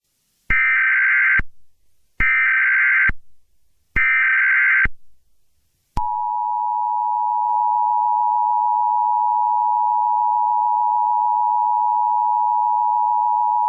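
US Emergency Alert System tones: three short buzzing bursts of SAME header data, then about six seconds in the steady two-note EAS attention signal starts and holds. This is the sequence that announces an emergency alert message.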